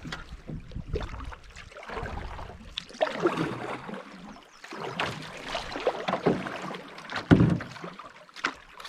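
Canoe paddle strokes in a flowing creek: water splashes and swirls with each stroke, in uneven pulses every second or two, with a few sharp knocks between them.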